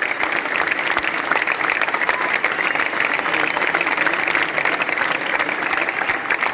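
Large crowd applauding steadily, a dense continuous clatter of many hands clapping.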